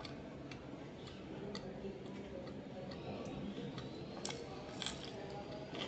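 Close-miked chewing and mouth sounds of someone eating with her hands: irregular soft clicks and smacks, a few sharper ones in the second half.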